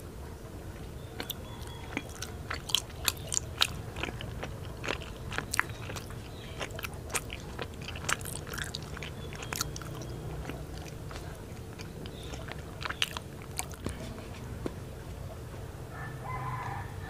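Close-up chewing of a soft green daifuku (mochi rice cake): a run of sharp mouth clicks and smacks, thickest in the first two thirds. A rooster crows in the background near the end.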